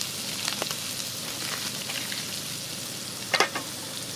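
Beef sizzling as it fries in a pan, a steady hiss. A few light clicks, with a sharper cluster about three and a half seconds in.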